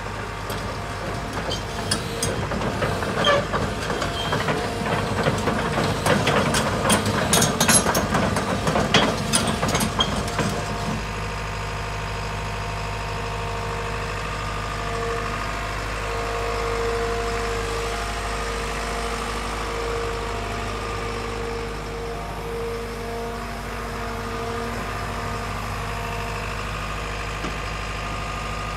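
A JCB JZ140LC tracked excavator's diesel engine running, with irregular clattering and knocks over it for the first ten seconds or so. After that it settles into a steady run with a constant whine.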